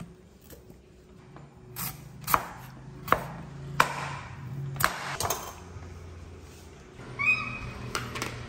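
Kitchen knife cutting through raw pumpkin and knocking on a wooden end-grain cutting board, about six sharp knocks in a few seconds. A brief high-pitched squeak near the end.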